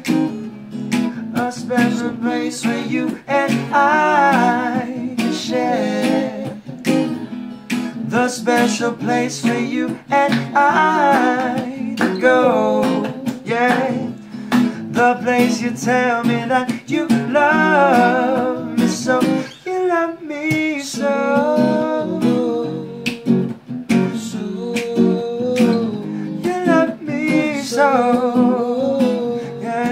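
A song: singing over a strummed acoustic guitar.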